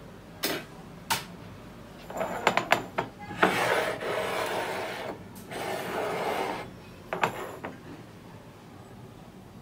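Glassware and a ceramic bowl being set down and slid on a kitchen countertop: a few sharp clicks and knocks, then two scraping rubs lasting a second or two each, then a couple more clicks.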